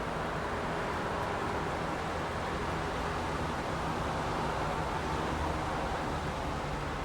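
Steady rain on a wet city street, an even hiss, with a low steady rumble underneath.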